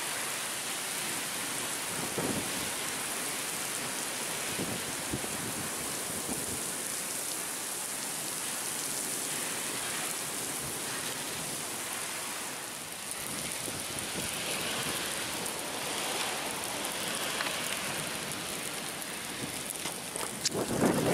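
Heavy thunderstorm rain pouring down, a steady dense hiss of rain.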